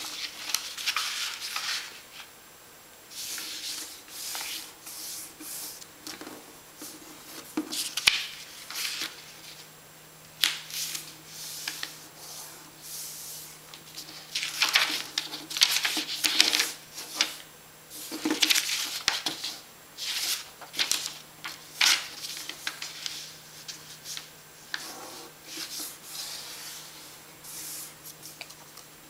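A sheet of paper being folded and creased by hand on a tabletop: repeated rustling, sliding swishes with pauses between them, and a few sharp clicks as folds are pressed down.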